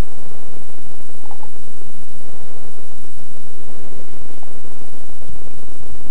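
Loud steady hiss-like noise with an uneven low rumble beneath it.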